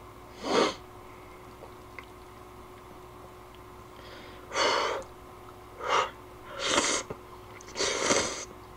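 A person slurping instant ramen noodles: one short slurp about half a second in, then a run of four noisy slurps in the second half.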